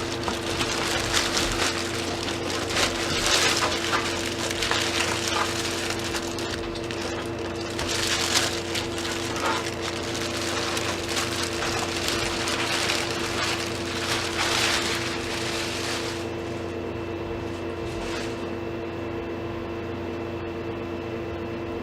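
Rustling and crinkling of packaging being handled and pulled off a new computer case, over a steady low hum. The rustling dies down about 16 seconds in.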